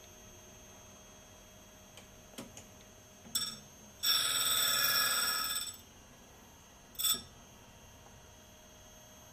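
Grinding wheel of a tool grinder contacting a carbide end mill's corner while grinding a radius: a high-pitched ringing squeal in three contacts, a brief touch about three seconds in, a longer pass of about a second and a half, and another brief touch about seven seconds in.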